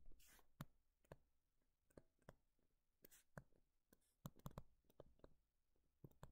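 Near silence with faint scattered clicks and short scratches of a stylus tapping and dragging on a tablet as words are handwritten.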